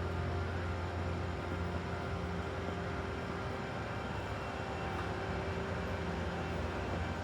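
Diesel engine of a compact construction machine running steadily, a low even drone.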